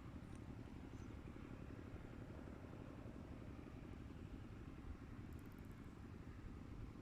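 Faint, steady low rumble of outdoor background noise, with a few faint high ticks.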